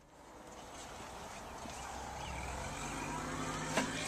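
A steady mechanical hum with a faint, slowly rising whine that grows louder, and a sharp click near the end as a door is opened.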